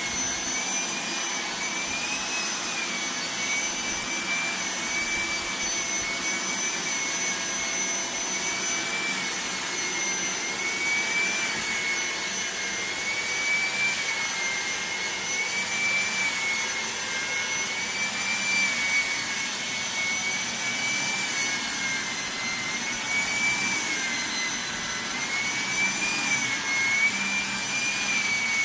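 Electrolux ZAP9940 vacuum cleaner running steadily, its motor whine wavering slightly up and down in pitch over a constant rushing hiss of suction.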